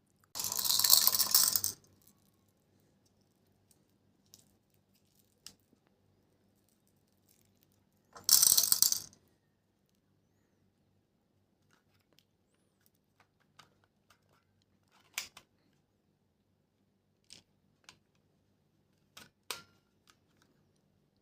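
Two loud bursts of hard rattling, like many small plastic pieces shaken or poured together, about a second and a half long and then about a second long, followed by scattered light clicks and taps of plastic toy parts being handled.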